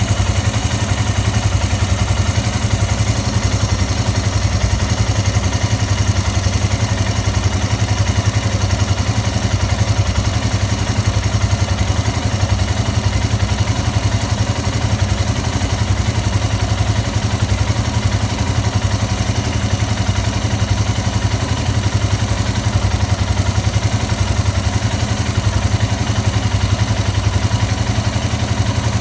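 Royal Enfield Himalayan's single-cylinder engine idling steadily, with an even low thump and no revving.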